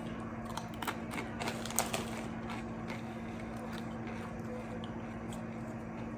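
A person chewing a crisp chip dipped in hot sauce, with scattered irregular crunches and mouth clicks over a steady low electrical hum.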